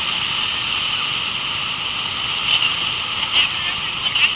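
Rushing whitewater rapids heard from a raft on a river at high flow, a steady loud rush. A few brief sharp splashes or knocks in the second half.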